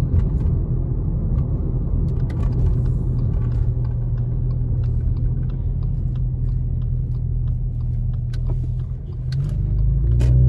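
Steady low rumble of a car's engine and tyres on wet pavement, heard from inside the moving car. Near the end the noise dips briefly, then a steadier, louder engine hum builds.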